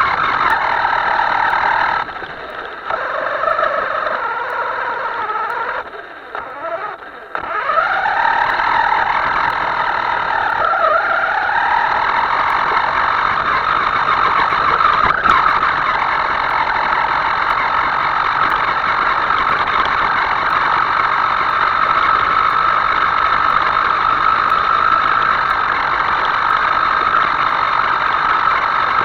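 Small electric motor of a radio-controlled model whining, its pitch dipping and rising with the throttle, cutting back sharply about two and six seconds in, then holding a steady pitch for the rest.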